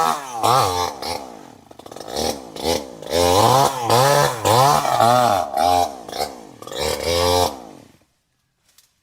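Chainsaw engine revved in short repeated blips, each rev rising and falling in pitch, about one and a half a second. It falls silent about eight seconds in.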